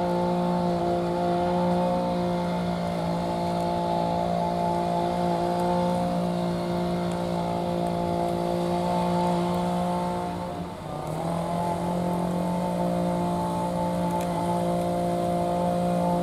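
Steady machine drone, a hum of several fixed tones like an engine or motor running. About two-thirds through it briefly sags in level and pitch, then returns to the same steady hum.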